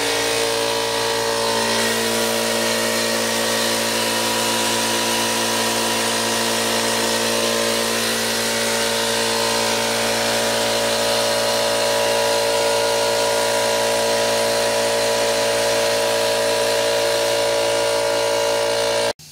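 Air compressor running steadily, driving a drywall texture hopper gun that sprays texture with a constant air hiss. The sound cuts off suddenly near the end.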